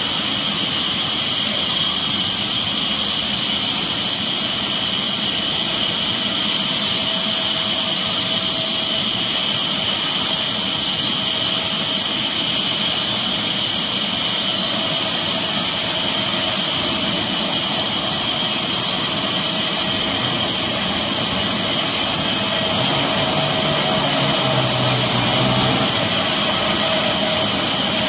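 Belt-driven horizontal band saw running steadily in a sawmill: a continuous high hiss and whine from the blade and drive.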